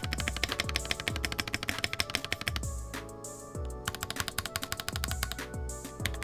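Fast typing on a WhiteFox Eclipse high-profile aluminium-cased keyboard with Gateron Yellow linear switches and foam fitted, a dense run of keystrokes with a pause of about a second midway. Background music plays underneath throughout.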